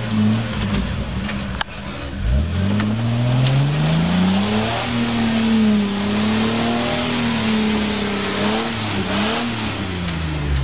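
Jeep Wrangler Rubicon engine revving hard under load in deep mud: a few short blips, then a steep rise about two seconds in to a high, wavering rev held for several seconds with a hiss of tyres churning mud, dropping back near the end.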